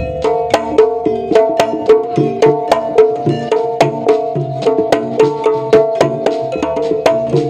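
Jaranan gamelan music: sharp hand-drum strokes in a fast, even beat over ringing, pitched gong-chime tones.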